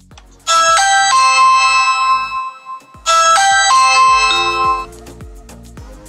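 Electronic video-doorbell chime played twice, each time a quick rising run of notes ending on a held, ringing tone, triggered by pressing the doorbell's button.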